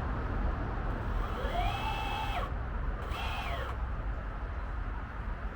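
Electric drive motors of a prototype RC boat spun up briefly twice, each a whine that rises, holds for a moment and falls away, over a steady low background noise.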